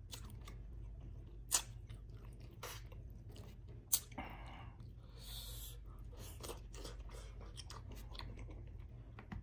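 Close-up chewing of a mouthful of rice and vinegar-stewed salmon head (paksiw na ulo ng salmon), with soft wet mouth sounds and a few sharp clicks, the loudest about four seconds in.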